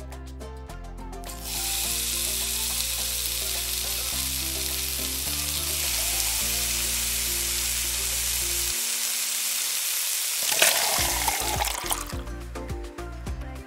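Butter sizzling as it melts in a tiny steel pot over a small burner, then frying on with flour added to make a roux. The sizzle steps up about a second and a half in, turns briefly louder about ten seconds in, and stops about twelve seconds in.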